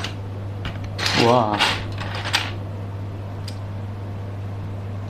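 Loose plastic keycaps clicking and clattering as they are handled and sorted, a handful of separate clicks over the first few seconds and one more near the end, over a steady low hum.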